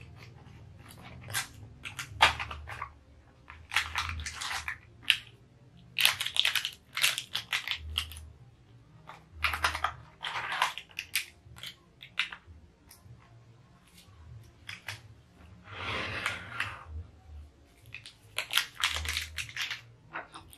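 Cardboard coffee box and foil sachets rustling and crinkling in the hands as the box is pulled open and sachets taken out, in irregular crackly bursts with a few soft bumps.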